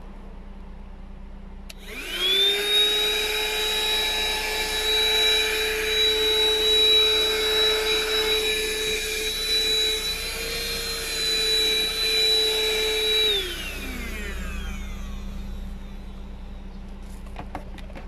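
12-volt handheld wet-dry car vacuum cleaner switched on with a click about two seconds in. Its motor whines quickly up to speed and runs very loud and steady, a high whine over a rush of air. After about eleven seconds it is switched off and spins down with a falling whine.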